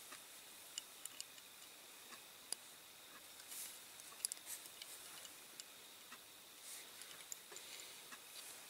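Faint scattered clicks and taps, with a few soft rustles, as a small diecast model car's wheels and axle are handled and pushed back onto its base.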